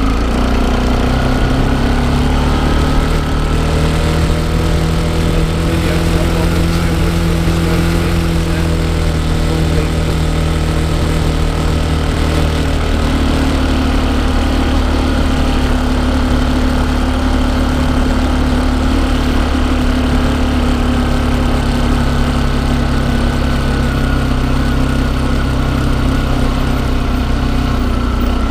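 Small motorcycle engine running while being ridden. Its pitch steps up about a second in and shifts again about halfway through.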